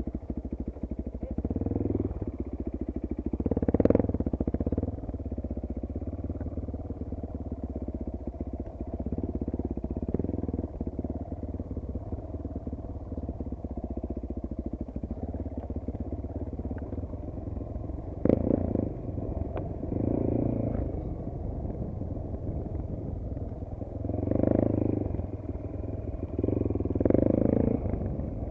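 Single-cylinder enduro motorcycle engine idling steadily through an aftermarket exhaust, with about six short throttle blips rising over the idle.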